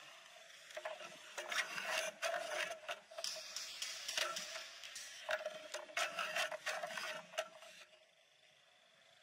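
Airsoft electric guns firing in short, irregular rattling bursts, stopping about eight seconds in.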